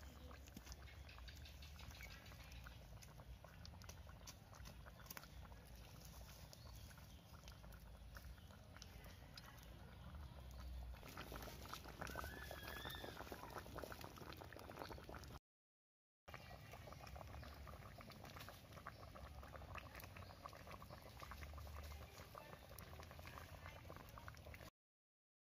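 Whole tilapia simmering in sauce in a wok over a wood fire: faint, steady bubbling and popping, a little louder about halfway through, cut off briefly twice.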